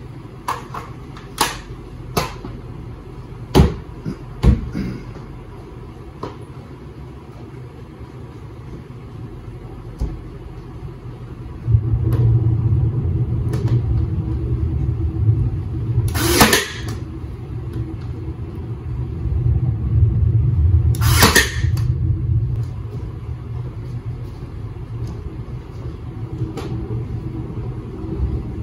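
A Ryobi cordless nail gun fires twice about five seconds apart, each shot a sharp snap, driving nails through a laminate flooring plank. Lighter knocks of handling the plank and tool come before the shots, and a low steady hum runs through the middle.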